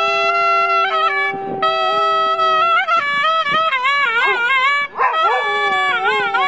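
Dog howling in long drawn-out notes that waver in pitch, breaking off briefly twice, over music.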